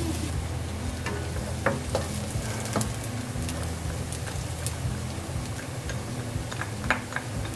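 Chopped onion frying in oil in a nonstick pan: a steady sizzle with a few scattered sharp clicks and pops, over a steady low hum.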